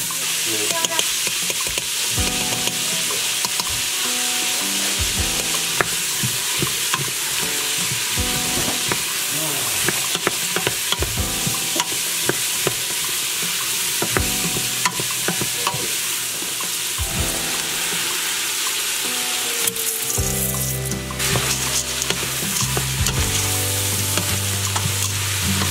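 Chopped carrots and celery sizzling steadily in bacon grease in an Instant Pot's stainless steel inner pot on sauté. A wooden spoon stirs through them, scraping and clicking against the pot again and again.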